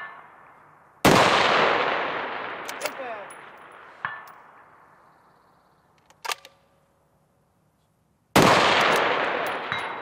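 Two rifle shots from a Tikka-action 6.5 Creedmoor precision rifle, one about a second in and one near the end, each trailing off in a long echo. In between come a few sharp clicks and faint short rings of bullets striking distant steel targets.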